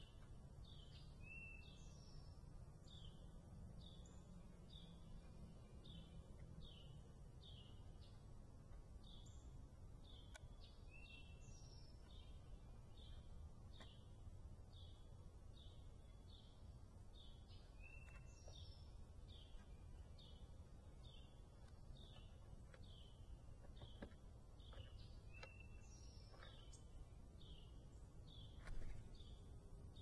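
Faint bird chirping: a steady run of short high chirps about twice a second, with occasional lower slurred notes, over a low outdoor rumble. A single sharp knock near the end.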